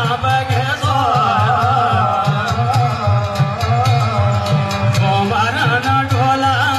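Kumaoni jagar devotional music: a hudka hourglass hand drum beats a steady rhythm under a long-drawn, wavering sung melody.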